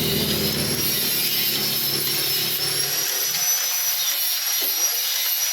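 Power tool running at high speed with a steady high whine; a lower rumble beneath it stops about halfway through.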